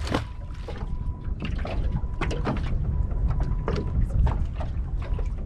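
Water lapping and slapping irregularly against the hull of a small aluminium boat, over a steady low rumble.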